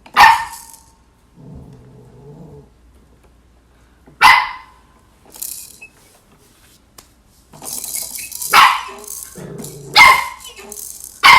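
Shetland sheepdog barking at her own reflection in a mirror: five sharp, high-pitched single barks a second or several seconds apart, coming closer together near the end.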